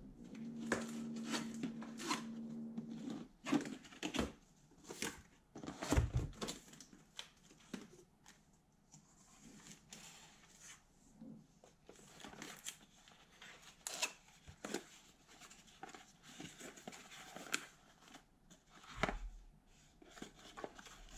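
Cardboard packaging being opened and handled: a steady low whine for the first three seconds or so as the box is worked open, then cardboard flaps scraping and knocking and plastic bags rustling, with a few sharper knocks.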